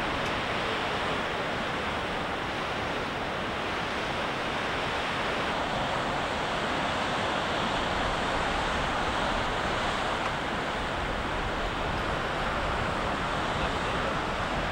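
Ocean surf washing over a rocky shore, a steady unbroken rush of noise, with wind buffeting the microphone.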